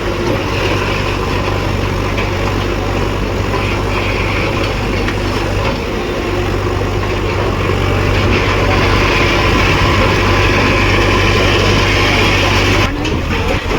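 Demolition machine's engine running steadily with a low, even hum, briefly dropping off near the end.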